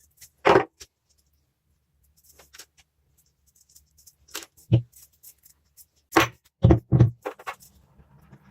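Metal parts of a small rusty vise being handled on a workbench: a string of separate sharp clinks and knocks, the loudest about half a second in and a cluster of three between six and seven seconds.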